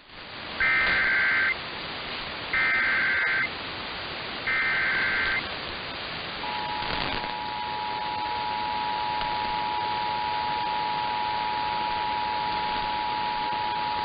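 Emergency Alert System activation received over AM radio with steady static hiss: three short bursts of the SAME digital header, each about a second long and two seconds apart, then the steady two-tone attention signal (853 and 960 Hz) starting about six seconds in and holding. It marks the start of a flash flood warning broadcast.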